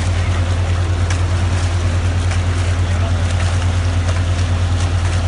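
Steady low hum of oil-skimming machinery running while it recovers thick oily sludge, an even mechanical drone with no change in pitch.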